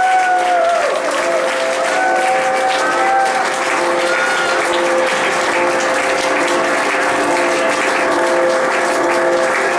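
Audience applauding and cheering at the end of a song, over a held instrumental drone: one steady tone, with a lower note pulsing a little more than once a second.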